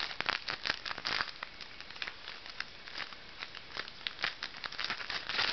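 Foil wrapper of a Magic: The Gathering booster pack crinkling and tearing as it is opened by hand: a run of irregular crackles, densest in the first second or so and sparser afterwards.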